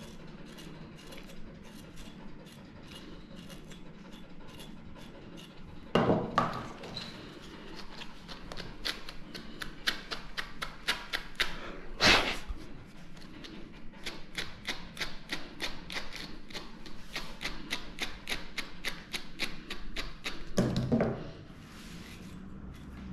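A brush raked quickly and repeatedly through a dog's badly matted tail hair, about three scratchy strokes a second. A few louder knocks and bumps fall about a quarter of the way in, midway and near the end.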